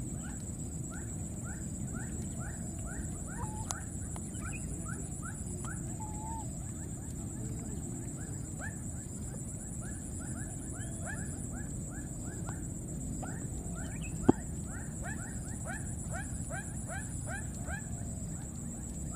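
An animal calling over and over: short rising squeaky calls, about two or three a second, with brief pauses. A single sharp click sounds about three-quarters of the way through.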